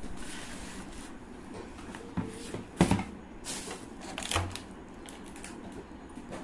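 Craft supplies being handled over a plastic tray on a wooden table: several knocks and clicks with light rustling, the sharpest knock a little under three seconds in.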